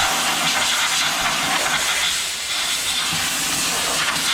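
Compressed-air blow gun giving a steady, loud hiss, blowing loose grit out of freshly tapped bolt holes.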